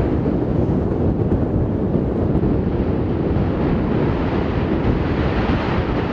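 Strong wind buffeting the microphone: a loud, steady rumbling rush with no separate events.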